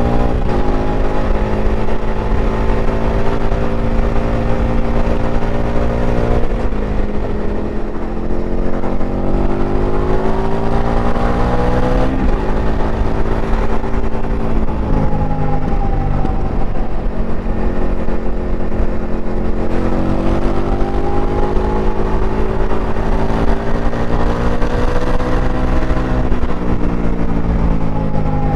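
Indian FTR 1200R's V-twin engine heard onboard while riding, its pitch climbing and falling again and again as the throttle is opened and rolled off. It drops sharply about six and a half seconds in and again about twelve seconds in, then builds again.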